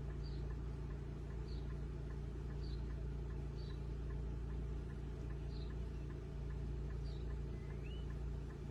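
Steady low hum with faint, short high chirps about once a second and one rising chirp near the end.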